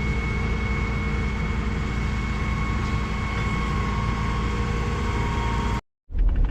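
An engine idling steadily with a constant hum, stopping abruptly near the end.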